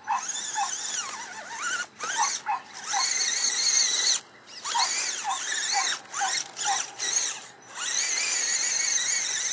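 Axial SCX10 Honcho RC crawler's electric motor and gears whining high-pitched, revving up and down in repeated throttle bursts with short pauses, as it churns through thick mud.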